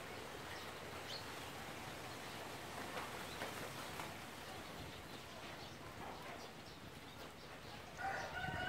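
Faint outdoor background, then near the end a rooster starts to crow: one drawn-out call held at a steady pitch.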